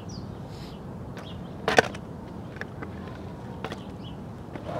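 Skateboard with its trucks loosened until the bolts barely hold, on concrete: a low steady rumble with one sharp clack of the board a little under two seconds in, then a few light knocks.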